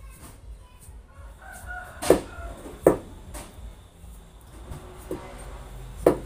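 A large knife chopping green papaya on a wooden board, four sharp knocks spread over a few seconds. A rooster crows in the background about a second and a half in.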